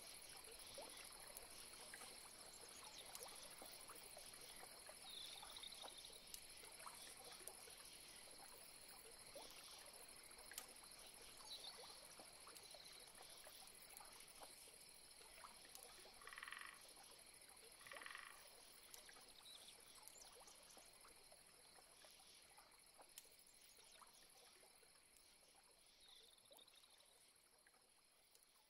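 Faint swamp ambience: a steady high-pitched insect drone with frogs calling, including two short croaks about a second and a half apart past the middle. It fades out near the end.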